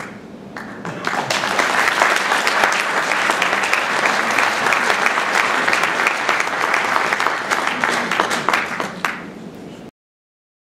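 Audience applauding, starting about a second in, holding steady and tapering off near the end before cutting off suddenly to silence.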